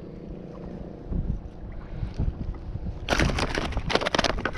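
Wind rumbling on the microphone of a kayak-mounted camera, with lapping water. About three seconds in comes a dense run of sharp crackles and rustles from handling close to the microphone.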